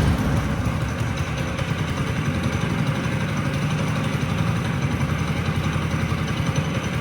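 Homemade snow dog track sled's 5-horsepower engine idling steadily with a fast, even pulse.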